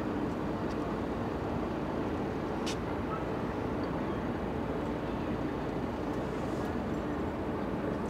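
Steady low rumble of harbour background noise with a faint continuous hum, likely carried from the departing cruise ship and the surrounding docks. A single short click comes a little before three seconds in.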